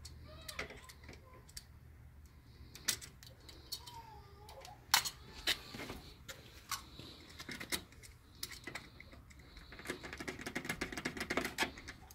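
Sharp clicks and taps of a hand blade and hands working the screen door's bottom sweep as its excess is trimmed at the door edge, with a run of quick crackling ticks about ten seconds in.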